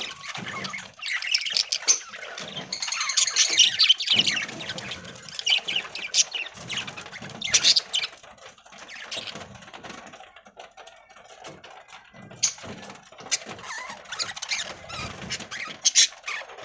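A flock of budgies chirping and chattering in quick, overlapping high calls, busy at first, thinning out for a few seconds past the middle, then picking up again near the end.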